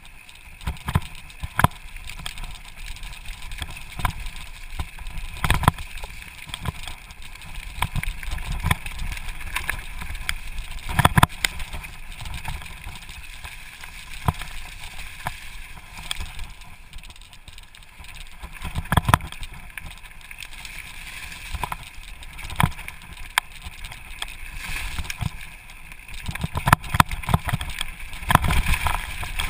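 Santa Cruz Blur LT2 full-suspension mountain bike ridden fast down dirt singletrack: a steady rush of tyre and wind noise, broken every second or two by sharp clunks and rattles as the bike hits bumps and berms.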